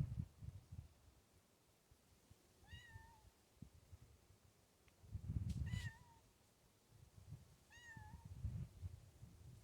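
A domestic cat meowing three times, each a short high meow that rises and then levels off, a couple of seconds apart. Under them is faint low rumbling.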